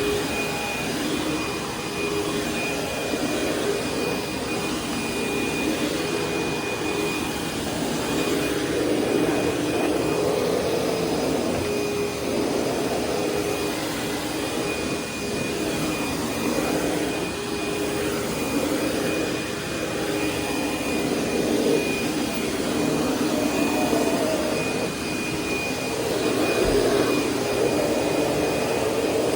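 1998 Sharp Super Charged Twin Energy upright vacuum cleaner running steadily, a motor drone with a thin high whine, its level swelling and easing slightly every few seconds.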